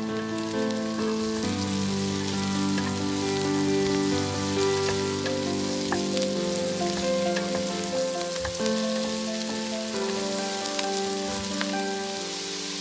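Diced pumpkin and onion sizzling in a steel pot, stirred with a wooden spatula, with a steady crackle and scattered small clicks. Soft background music of long held notes plays underneath.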